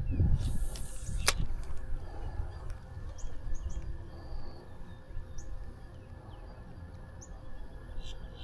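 Outdoor ambience: a steady low rumble of wind and handling on the microphone, with scattered short, high bird chirps. About a second in there is a brief swish followed by a sharp click.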